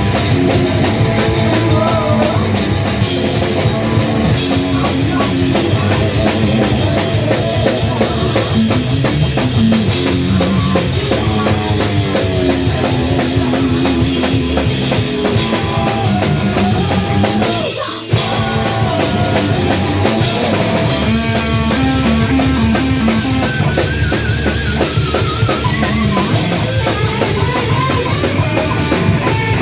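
Live punk rock band playing loud, with drum kit and electric guitar. The level dips briefly about two-thirds of the way through.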